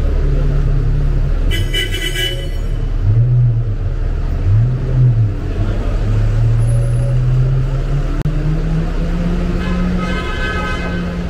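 Street traffic: a vehicle engine runs close by over a steady traffic rumble, its pitch rising and falling twice a few seconds in. Short higher-pitched tones come about two seconds in and again near the end.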